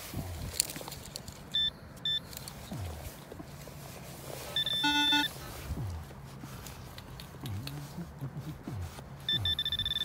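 Metal detector electronic tones: two short high beeps early on, a louder buzzing lower tone about five seconds in, and a steady, fast-pulsing high tone that starts near the end as the target is pinpointed.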